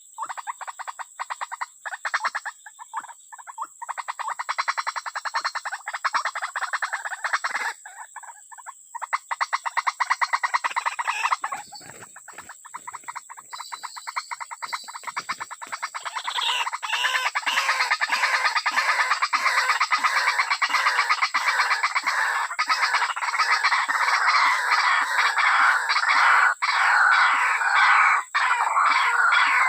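Animal calls in rapid pulsing trills, scattered at first and building into a dense continuous chorus about halfway through.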